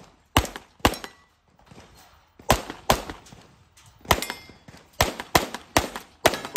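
Handgun shots fired in quick pairs with short pauses between: two pairs in the first three seconds, then a faster string of about six shots from about four seconds in.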